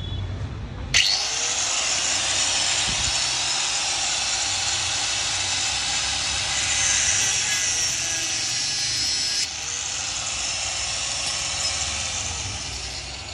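Angle grinder cutting through a motorcycle's steel drive chain. It starts suddenly about a second in with the motor spinning up, cuts off briefly and spins up again near ten seconds, and winds down near the end.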